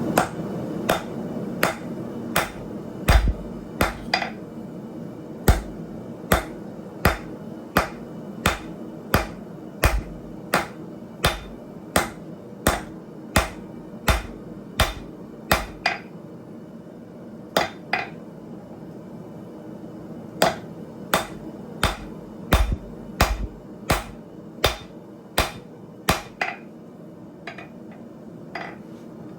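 Blacksmith's hand hammer striking hot steel on an anvil in a steady rhythm of about two blows a second, with short pauses about halfway through and near the end.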